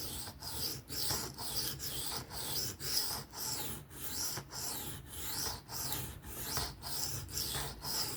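A 3V steel knife blade being stroked back and forth on a sharpening stone in freehand sharpening. The scraping strokes come steadily at about two a second.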